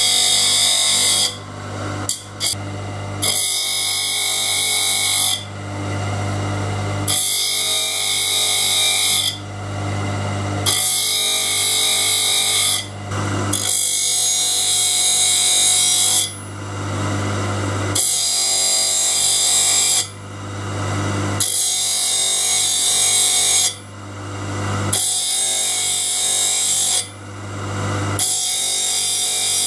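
Bench saw-blade sharpener's grinding wheel running and grinding the carbide tips of a large circular saw blade one tooth after another. About a dozen passes of grinding hiss, roughly every two seconds, sit over a steady motor hum, with short breaks between teeth.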